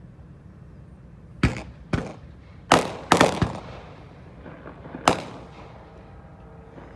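Several sharp bangs, each with a short fading tail: two about a second and a half in, a tight cluster of the loudest around three seconds in, and a last one about five seconds in, over a low steady rumble.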